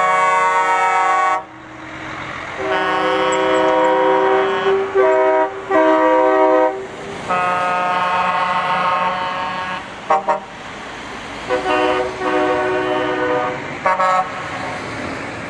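Truck air horns sounding as a convoy of lorries drives past: a string of long, loud blasts one after another, with short gaps and a couple of brief toots in between. Diesel engines and tyres rumble underneath.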